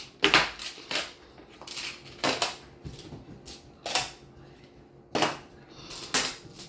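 Plastic magnetic building tiles snapping together, making sharp clacks at irregular intervals, about seven in all.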